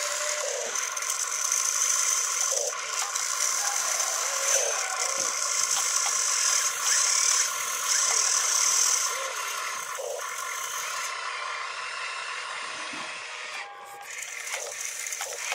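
Small electric motors of a toy RC excavator whining as the boom and bucket move. The high part of the whine stops about eleven seconds in, and light mechanical rattling runs alongside.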